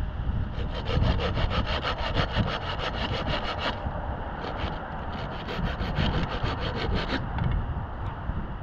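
Small hand saw cutting through a dry branch: two runs of quick back-and-forth strokes, about five a second, with a short pause around the middle.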